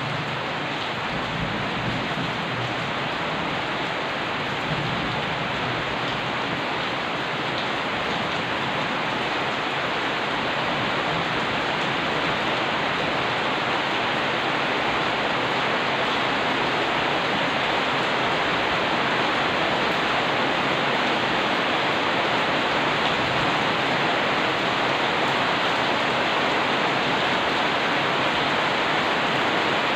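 Steady rain falling on a street and wet surfaces, an even hiss that grows gradually louder.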